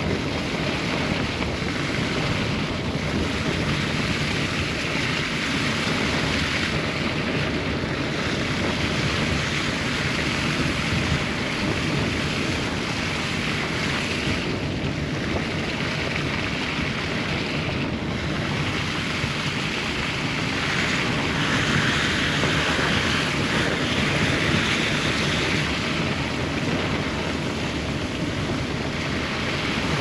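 Steady road noise from a Honda Civic driving on a wet, slushy snow road: tyre hiss and rushing wind over a low rumble, growing a little louder for a few seconds past the middle.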